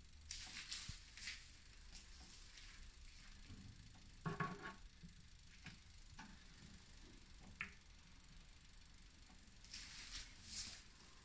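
Faint handling sounds of cake pans being set into a water-bath tray in a countertop oven: soft scrapes and light knocks, the loudest a brief scrape about four seconds in.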